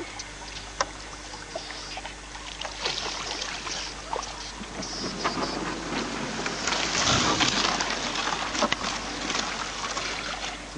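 Water sloshing and reeds brushing and rustling as a boat is poled through a reed marsh, with scattered knocks; the rustling grows loudest about two-thirds of the way through.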